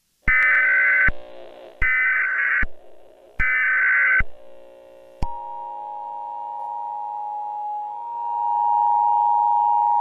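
Emergency Alert System broadcast signal: three short, harsh screeching data bursts about a second and a half apart, then from about five seconds in the steady two-tone attention signal.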